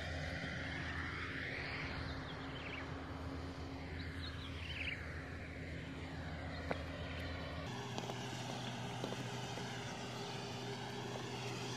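Komatsu hydraulic excavator's diesel engine running steadily at a distance, a constant low hum; its tone shifts abruptly about eight seconds in.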